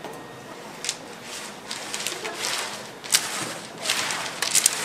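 Hard-candy sticks being rolled under gloved hands on a steel table: a scraping rub with scattered sharp clicks as the sticks knock against each other and the metal, the clicks bunching together near the end.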